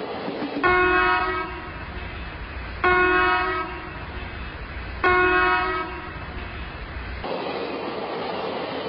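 Train horn sounding three short blasts about two seconds apart over the steady rumble of a running train. The rumble stops about seven seconds in, and a hissing noise carries on.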